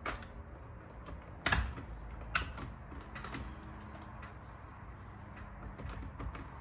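Driver's airbag module being pressed onto a steering wheel: a few sharp plastic clicks and knocks with some creaking, the loudest about a second and a half in.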